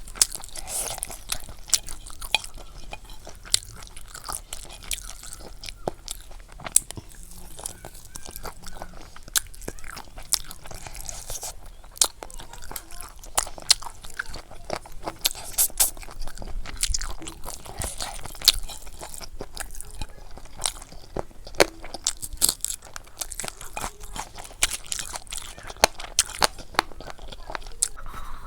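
Close-miked chewing and biting of pork curry and rice, with irregular wet smacks, crunches and clicks.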